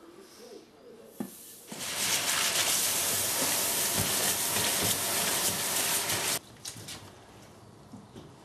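Crushed malt grain pouring from a bag into a steel mash tun: a loud, steady rushing hiss that begins after about a second and a half and stops abruptly about four and a half seconds later.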